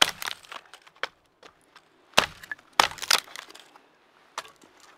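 Dry wood snapping and cracking as firewood is broken up by hand: a handful of sharp, separate cracks, the loudest a little past two seconds in and near three seconds in.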